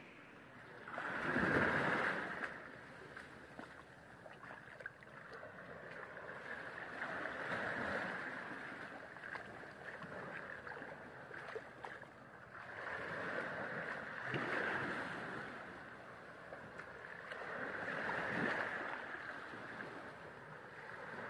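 Small waves washing in on a sandy beach, the hiss of water swelling and falling back about four times, the loudest near the start.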